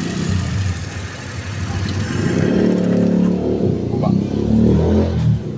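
Suzuki Every DB52's small engine running, then revving up about two seconds in and staying raised for about three seconds.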